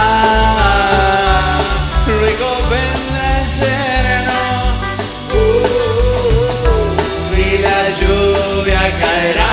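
Live band music: a male singer sings a slow ballad over a band with drum kit.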